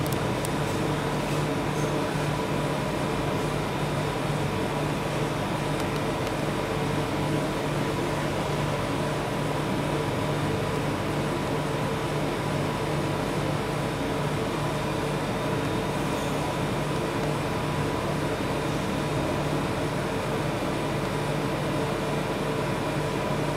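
Steady mechanical hum of a rolled ice cream cold-plate machine's refrigeration unit running, an even drone with a few constant pitched tones.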